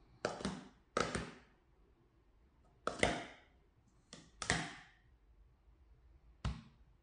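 Blue plastic sport stacking cups sliding and clattering together as the pyramids are taken down into nested stacks. There are six quick clatters, two of them close together in the middle, each dying away in about half a second.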